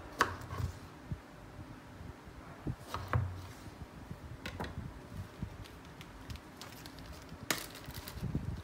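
Kitchen knife cutting through a lemon and knocking on a plastic cutting board, followed by scattered taps as the lemon halves are handled. A sharper crinkle near the end as a small plastic bag is picked up.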